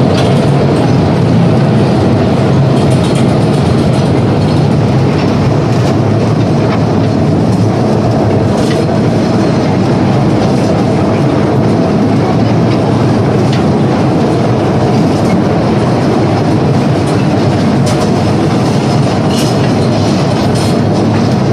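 Small mine train running through a narrow tunnel: a steady, loud rumble and rattle of the wheels on the track, with a few sharp clicks.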